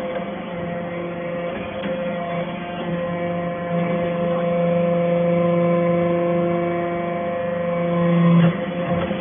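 Hydraulic metal-chip baler running with a steady hum, swelling a little louder and then dropping off sharply near the end.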